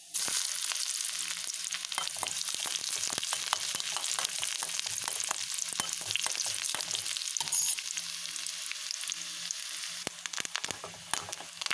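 Chopped shallots dropped into hot oil with popping mustard seeds in a small wok, starting suddenly with a loud sizzle full of sharp crackles that goes on steadily, a little quieter near the end.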